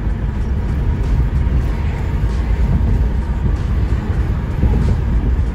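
Car driving at highway speed, heard from inside the cabin: a steady low rumble of road and engine noise.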